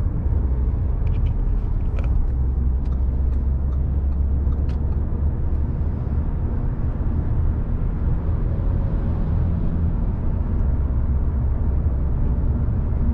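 Steady low rumble of road and engine noise heard inside an Audi car's cabin while cruising on a highway. A few faint light clicks come in the first few seconds.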